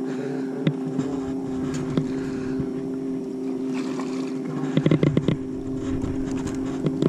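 Steady hum of a small fishing boat's motor, with a splash and a quick cluster of knocks about five seconds in as a bass is scooped into a landing net beside the boat.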